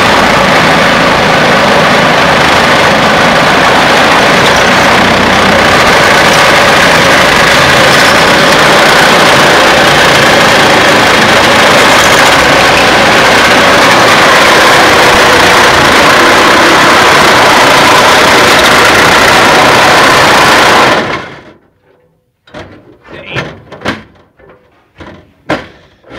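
Power saw cutting through several layers of vehicle sheet metal, a loud continuous rasping run that stops abruptly about 21 seconds in, followed by a few short knocks.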